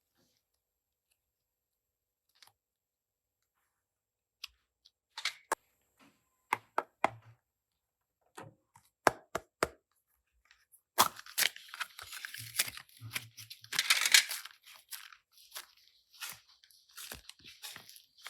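Slime being worked by hand: after a few quiet seconds, scattered sharp clicks and pops, building to a dense stretch of crackling about eleven seconds in, then sparser clicks again.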